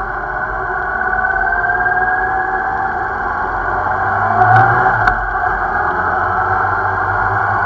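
Yamaha XJ6 Diversion's 600 cc inline-four engine pulling the motorcycle up from low speed, its note rising slowly as it accelerates. Two short clicks sound about halfway through.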